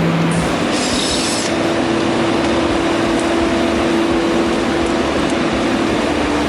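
A machine blower running with a loud, steady rush of air and a constant hum. The hum steps up to a higher pitch about a second and a half in.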